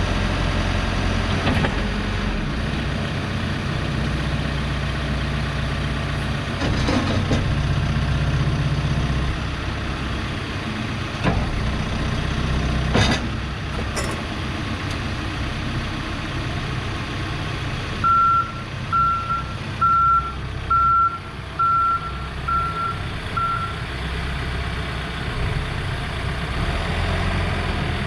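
2014 Case 580 Super N backhoe loader's diesel engine running steadily, with a few sharp clunks around the middle. Later the reverse alarm beeps seven times in an even rhythm, roughly one beep a second.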